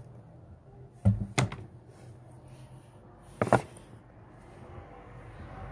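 Handling noise as shoes and cardboard shoe boxes are moved about: a few sharp knocks about a second in and again at three and a half seconds.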